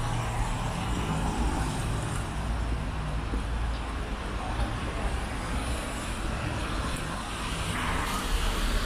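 Road traffic on a rain-wet city street: a steady engine rumble and tyre hiss from passing cars, swelling a little near the end as a vehicle goes by.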